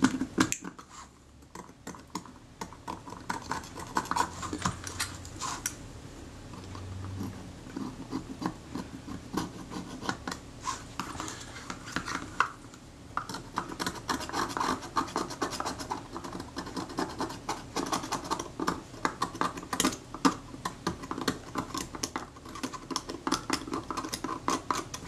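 Back edge of a scalpel blade scraping old leatherette adhesive off a Kodak Retina IIIS's oxidized aluminium body casting, in many short, irregular strokes.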